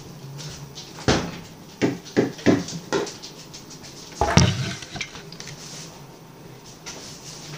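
Kitchen clatter: dishes and containers being handled, knocked and set down, several sharp knocks with the loudest about four seconds in, over a low steady hum.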